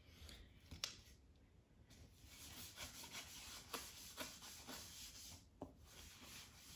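Faint scratching strokes of drawing on paper, with a few light taps.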